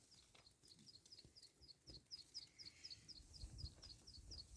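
A small bird calling: a faint, steady run of short, high chirps, about four a second.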